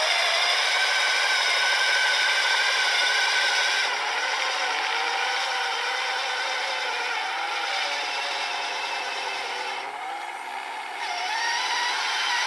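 Small battery-powered electric motors of an RC snowblower and RC truck running with a whine whose pitch wanders as the load changes. The sound drops a little about four seconds in, dips further around ten seconds, then picks back up.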